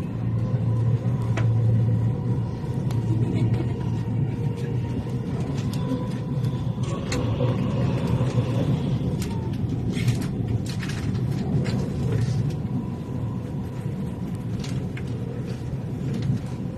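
Dubai Metro train running between stations, heard from inside the carriage: a steady low rumble, with a few sharp clicks a little past the middle.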